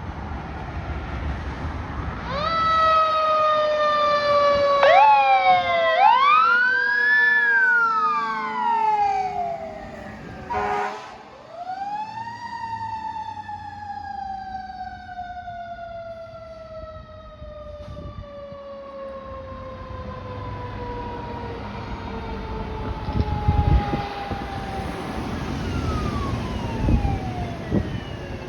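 Fire trucks responding with sirens. Twice a siren starts abruptly and then slowly falls in pitch over many seconds, and an electronic wail rises and falls over it. A brief horn blast comes about ten and a half seconds in.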